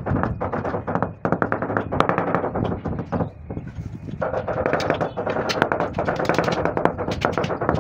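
Rubber mallet tapping marble floor slabs in quick runs of sharp knocks, bedding them down into the mortar to level them.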